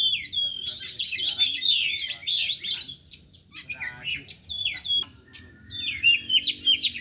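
Oriental magpie-robins (kacer) singing: a dense, varied run of quick whistles, chirps and slurred notes, easing off for a moment partway through before picking up again.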